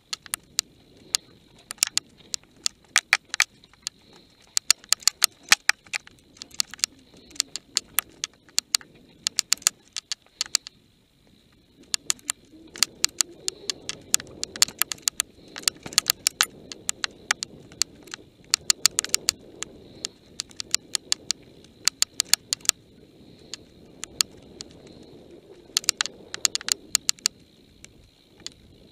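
Mountain bike rattling over a rough, rocky downhill trail: rapid clusters of sharp clicks and knocks from the bike and its mounted camera, over a low rush of tyres on dirt and wind that grows louder partway through.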